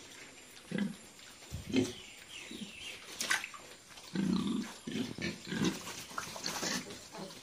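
Six-month-old pigs grunting in short, irregular grunts, which come thicker in the second half.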